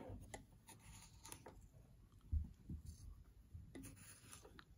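Mostly quiet, with a few faint clicks and taps of a small plastic measuring scoop worked in a container of table salt, and a soft low thump about halfway through.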